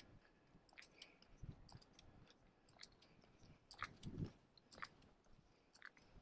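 Faint footsteps of a walker on pavement, with small knocks and clicks from the body-mounted camera: a couple of dull thumps and scattered sharp clicks, irregularly spaced.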